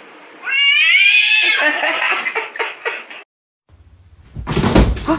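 A domestic cat yowling: one long drawn-out meow that rises in pitch, then breaks into a few shorter cries. After a short gap, a few dull thumps near the end.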